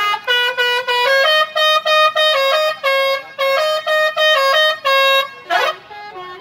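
Bus telolet horn, a set of electric air-horn trumpets, playing a quick tune of short notes that step between a few fixed pitches, about three or four notes a second. Near the end the tune stops, a short rising sweep follows, and softer notes continue.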